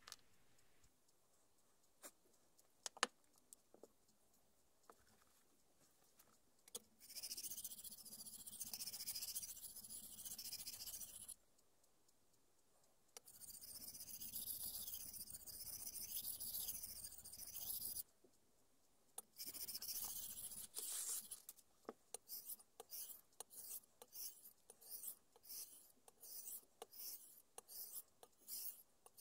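Abrasive scraping on a Shapton M5 1000-grit whetstone. First come three long stretches of even rubbing as a block is worked across the stone's face. Then, from about two-thirds of the way in, short rhythmic strokes of the steel cleaver blade on the stone, about two a second, as sharpening begins.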